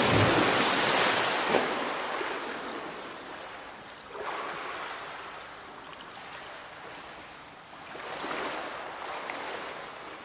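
Ocean waves breaking on a shore: three surges about four seconds apart. The first is the loudest, and each fades out in a hissing wash.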